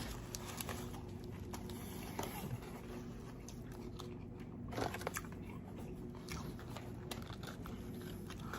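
Close-miked chewing of a mouthful of burger: faint, scattered small mouth clicks, with a slightly louder one about five seconds in.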